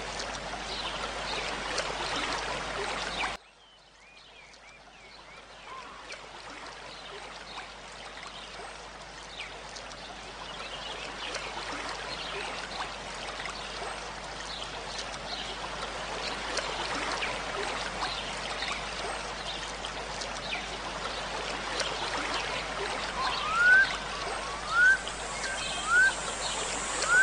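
Steady rush of running water like a stream. It cuts out suddenly a few seconds in and fades back up. Near the end a bird gives short rising chirps about once a second.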